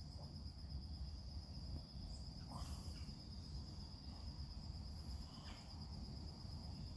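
A cricket's steady high trill over a faint low rumble, with two soft puffs about two and a half and five and a half seconds in from a smoker drawing on a corncob pipe.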